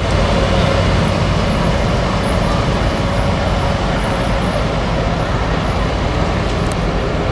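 Farm tractor engines running steadily without revving up or down, a dense low rumble with a faint steady hum through it.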